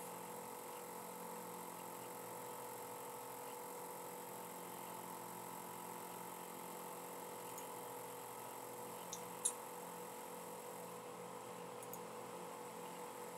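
Faint steady electrical hum with a few light computer mouse clicks, the loudest about nine and a half seconds in.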